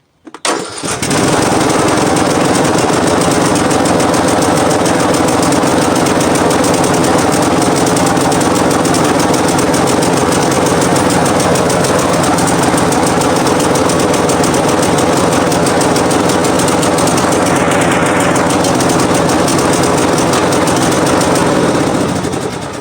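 Craftsman T110 lawn tractor's engine starting within about a second, on a boost from a jump-starter pack after its battery went flat over winter storage, then running steadily. It dies down near the end.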